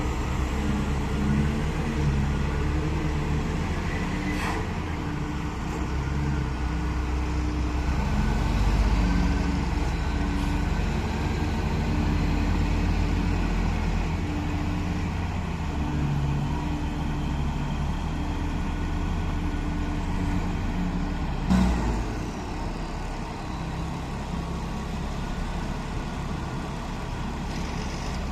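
Heavy diesel engines of a Hitachi EX2000 mining excavator and Cat 777 haul trucks running under working load, their pitch rising and falling, with one sharp knock about three-quarters of the way through.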